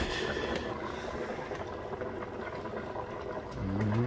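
Pot of cheese soup simmering on the stove, a steady bubbling hiss. A short rising vocal sound comes near the end.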